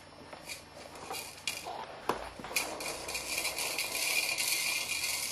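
Small mechanical rattling and clicking, in short bursts at first, then running continuously from about halfway through.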